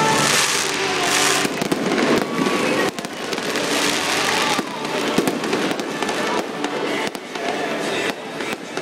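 Fireworks display: a rapid string of bangs and crackling bursts, with two longer stretches of bright hissing crackle, in the first second and a half and again around four seconds in.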